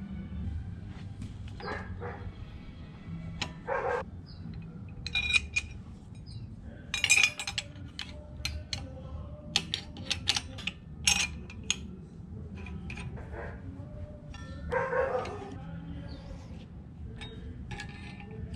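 Metal clinks and knocks from a wrench and fittings being worked on a JD2 manual tube bender, loudest in a cluster around the middle, with a dog barking a few times in the background.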